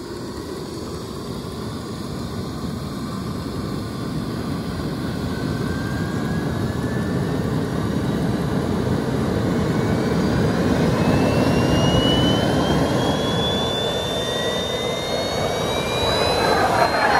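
Two F-15 fighter jets passing overhead: a deep jet roar that swells to its loudest about twelve seconds in and eases off. Under it, the jet suit's small turbine engines spool up at startup with whines rising steadily in pitch from about five seconds in.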